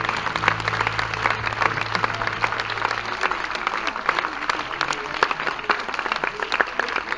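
Audience applauding after a song, a dense steady clatter of many hands clapping. A low held note from the stage rings under it and dies away about three seconds in.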